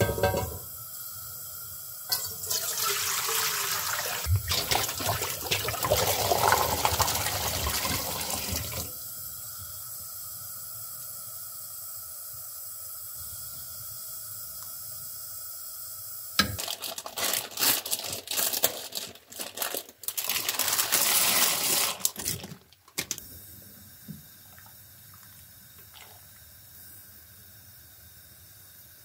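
Water being poured and splashing into an aluminium cooking pot, in two loud spells of several seconds each. A quieter steady hiss runs between them and after.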